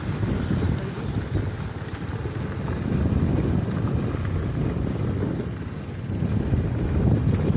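Motorcycle running along a dirt road: a steady, low, uneven rumble.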